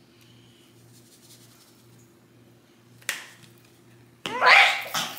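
A person coughing twice, a short cough about three seconds in and a louder, longer one near the end, from breathing in a cloud of powdered spice seasoning.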